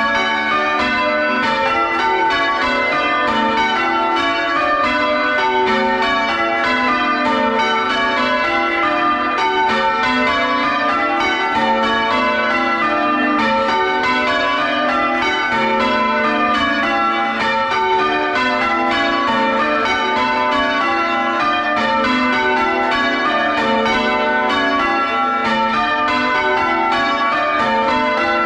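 The front six church bells of a larger ring being rung full circle, heard close up in the bell chamber: a continuous, evenly paced stream of overlapping bell strikes, each ringing on under the next.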